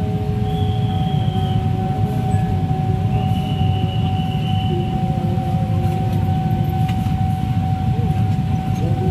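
Diesel-electric locomotive approaching slowly at a level crossing, its engine a heavy low rumble with a steady high tone over it. Two short high tones sound, one early and one from about three to five seconds in.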